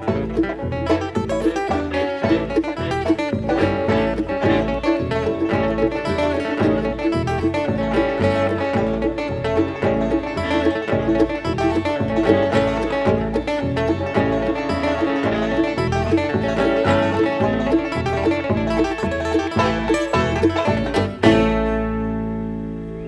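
Acoustic bluegrass string band playing live, with quick picked notes. A little over 21 seconds in they strike a final chord together that rings out and fades.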